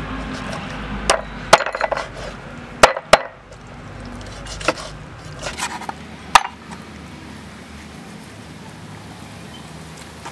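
Large knife chopping raw chicken on a thick wooden cutting board: about six sharp, irregularly spaced whacks of the blade into the wood, the last a little past halfway.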